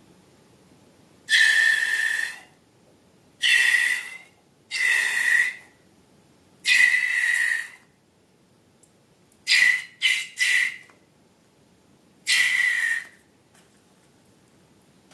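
Air squealing and hissing out of a stretched balloon neck in short bursts, about eight times: four longer squeals of roughly a second, then three quick ones in a row, then one more near the end.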